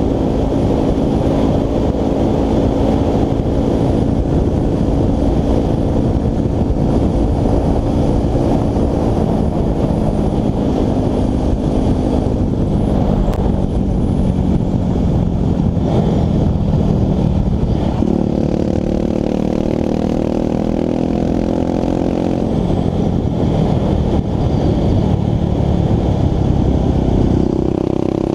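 Dirt bike engine running steadily while riding, with wind rumbling on the helmet-mounted microphone. About eighteen seconds in the wind eases and the engine note changes, and the pitch rises near the end.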